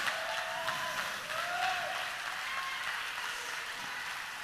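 Congregation applauding, with a few voices calling out over it; the applause slowly dies down.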